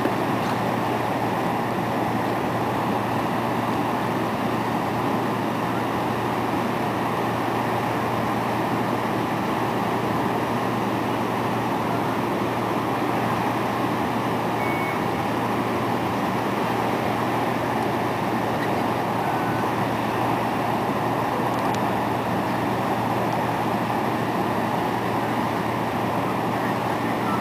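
Steady machinery running: an even rushing noise over a constant low hum, unchanging throughout.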